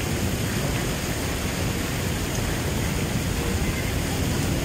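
Steady rain falling: an even, unbroken hiss that is heaviest low down.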